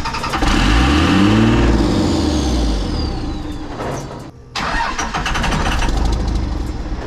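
2001 Dodge Ram's 5.9-litre Cummins turbo diesel firing on starting fluid: it catches, revs up and sags back over about three seconds, drops off briefly around four seconds in, then runs loudly again. It has lost prime in its VP44 injection pump, so it runs only on the ether and not on diesel.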